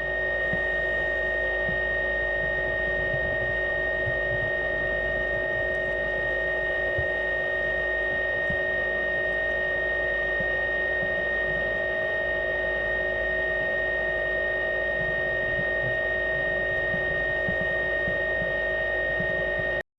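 Steady motor drone with a high, even whine over a low rumble, heard underwater. It holds one level without change and cuts off abruptly near the end.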